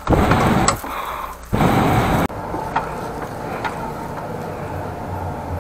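The 13-horsepower engine of a high-pressure sewer jetter runs steadily. Over it come two loud rushing bursts of noise in the first two seconds; the second stops abruptly a little past two seconds in, leaving only the engine drone.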